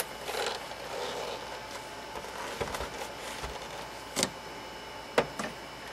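A SANYO M9994 boombox being handled and turned round on a workbench: a scrape as it slides in the first second or so, a few low thuds, and sharp knocks from its case and handle about four seconds in and twice about five seconds in.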